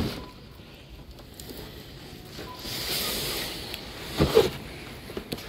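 Cardboard boxes being handled, scraping at the start, with a knock about four seconds in.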